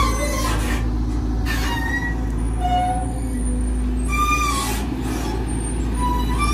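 Volvo EC210DL long-reach excavator working, its diesel engine running with a steady drone. Short, high whining tones that bend in pitch come and go over it.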